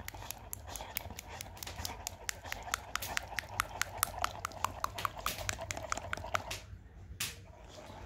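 Rottweiler chewing on a piece of pale green food held in a person's hand, its jaws clacking in rapid clicks several times a second. The chewing stops about six and a half seconds in, with one more clack a moment later.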